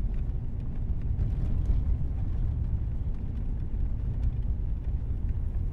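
A steady low rumble with no speech.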